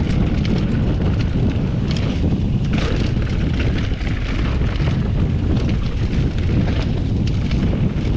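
Steady rush of wind on the microphone and the rumble of a mountain bike's tyres rolling fast over a dirt trail, with frequent small clicks and rattles from the bike.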